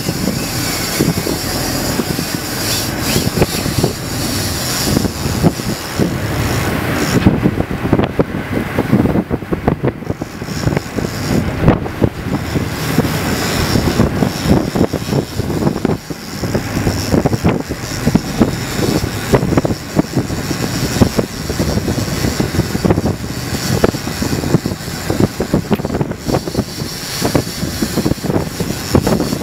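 Wind buffeting the microphone on an open boat at sea, over the drone of the boat's engine and churning water.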